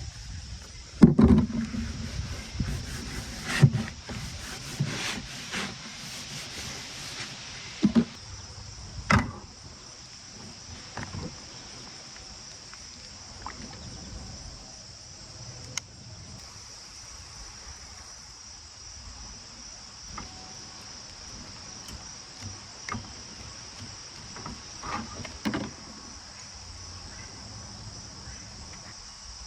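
Steady high-pitched chorus of crickets, with scattered knocks and clatters of camp cooking gear being handled in the first ten seconds and again briefly near the end.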